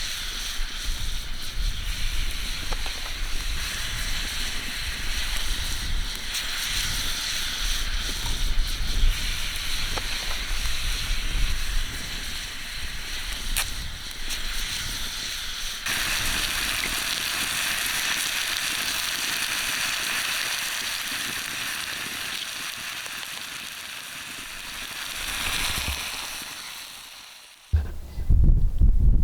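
Desert wind ambience: a steady windy hiss with low gusting rumble on the microphone. It changes abruptly about halfway through, and near the end a louder low rush of wind comes in.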